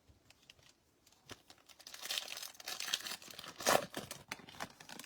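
Foil wrapper of a pack of trading cards crinkling and tearing as it is ripped open, after a few light clicks of card handling.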